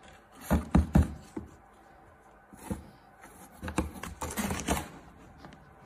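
Cardboard box tapped a few times, then a cat's paw scraping and scrabbling at the cardboard around the box's slot.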